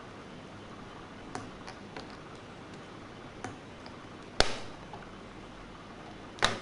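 Scattered light clicks and taps of hard plastic and metal laptop parts being handled, with two sharper knocks, one about two-thirds of the way through and one near the end, over a steady low hiss.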